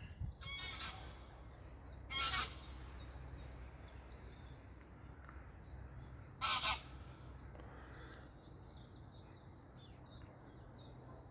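Waterfowl on a river giving three short honking calls: one near the start, one about two seconds in and one about six and a half seconds in. Small birds chirp faintly and high in the background through the second half.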